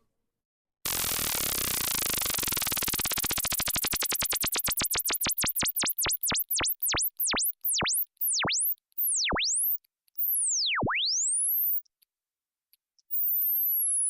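Synthesized novelty ringtone of pure electronic tones swooping down and back up in pitch. The swoops start out many times a second and slow to one every second or so. After a short gap near the end, a new tone begins gliding slowly downward.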